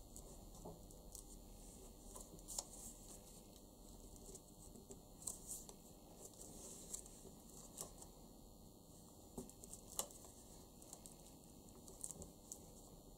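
Faint rustling and soft taps of thin paper cut-outs being pressed and smoothed by hand on a wooden tabletop, with a few sharper ticks scattered through.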